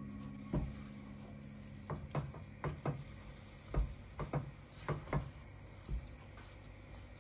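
Thick choux pastry dough being stirred in a saucepan on low heat, with about a dozen irregular knocks of the stirring utensil against the pan. This is the stage where the cooked dough is worked until its moisture is driven off.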